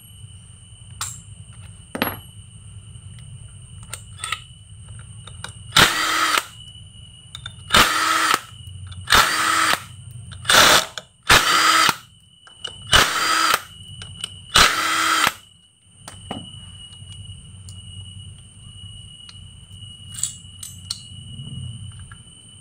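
Handheld power tool spinning a socket on the clutch hub nut of a Yamaha Vega ZR engine, run in seven short bursts of about half a second to a second each, loosening the nut so the clutch can be taken apart.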